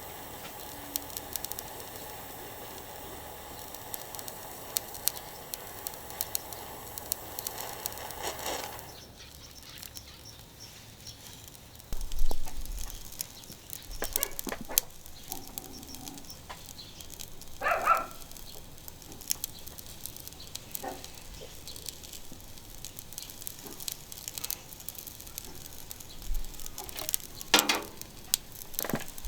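Charcoal crackling in a small grill, with scattered sharp clicks throughout. A steady hiss runs for the first nine seconds or so, then drops away, and several louder knocks follow, the loudest about twelve seconds in.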